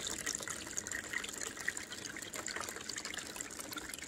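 Water running steadily over the ribbed low-profile V-mat on top of a stacked cube gold sluice. It makes a continuous trickling wash with many small splashes.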